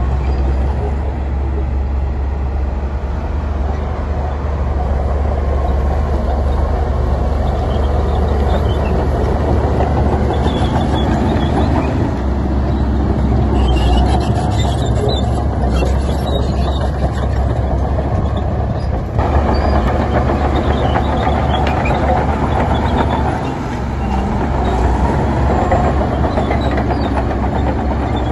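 Heavy diesel construction machinery running steadily, a continuous deep engine drone. The sound shifts abruptly about two-thirds of the way through.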